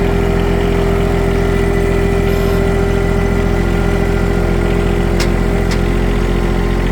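Farm tractor engine running steadily while towing a long hay elevator uphill. Two faint clicks come about five seconds in.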